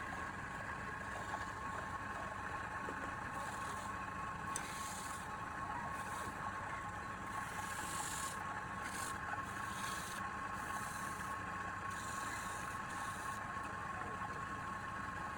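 Wood lathe running with a steady motor whine, while the spinning wood is worked with intermittent hissing scrapes that come and go every second or so.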